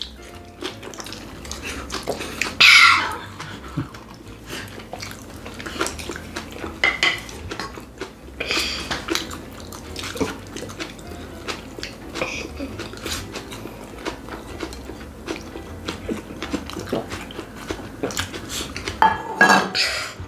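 Table eating sounds: metal chopsticks and spoons clicking against bowls and plates, with chewing. Loud wet slurps come about three seconds in, again around nine seconds, and once more near the end.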